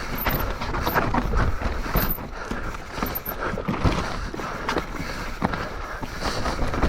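Mountain bike descending a rough trail: tyres rolling over dirt and rock with frequent knocks and rattles from the bike.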